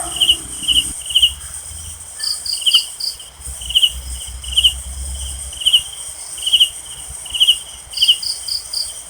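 Night insect chorus: a cricket giving short trilled chirps about once a second over a steady high insect drone, with quick runs of four higher chirps twice, about two seconds in and near the end.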